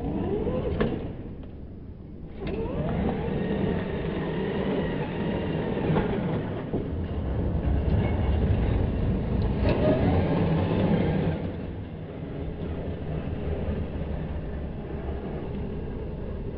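Radio-controlled off-road buggy's motor running, its pitch rising and falling as it speeds up and slows down. It is loudest about two-thirds of the way in, then fades as the buggy drives away.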